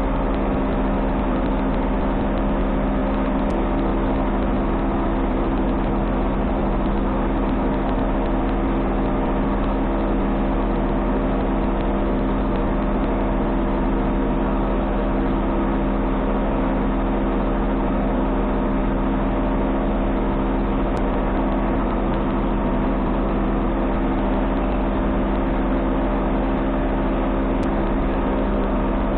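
An 18-inch Woodmaster thickness planer running at a steady, loud hum with several steady tones and no change in level.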